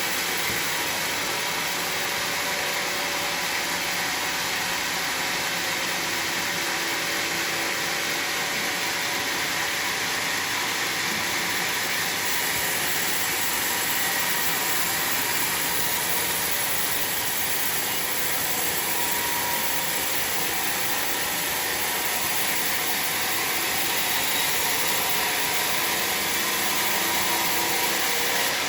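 Sawmill saw running steadily through bayur wood, a constant hissing whine with no break.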